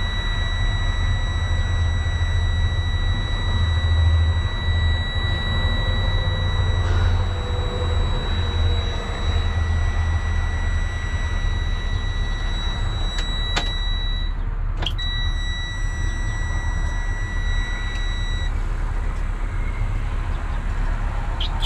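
A truck cab's low-air-pressure warning buzzer sounds a steady high tone while the brake air system sits empty and waiting to build pressure. The buzzer breaks off briefly about two-thirds of the way through, then stops for the last few seconds. Under it runs the steady low rumble of an idling diesel truck engine.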